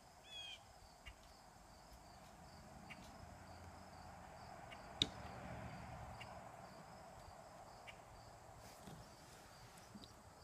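Quiet ambience of insects chirping in a faint, evenly pulsed high pattern, with a short bird call right at the start. A faint low rumble swells and fades through the middle, and there is a single sharp click about five seconds in.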